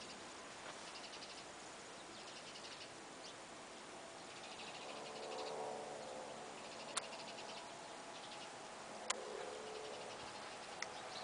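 Faint insect chirping in short, fast-pulsing trills that repeat every second or so. From about halfway a faint hum with a few steady tones comes in, and two sharp clicks fall in the second half.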